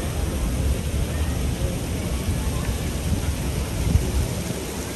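Steady downtown street noise: a low rumble of traffic under an even hiss.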